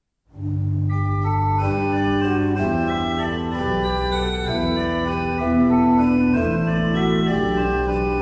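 Organ music: sustained chords over a held bass, the notes changing every second or so, starting a moment in from silence.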